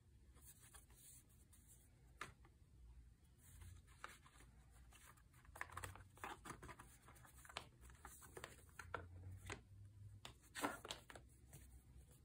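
Printed cardboard game boards and paper sheets being handled: a series of soft rustles and scrapes as card slides over card, with the sharpest scrape about ten and a half seconds in.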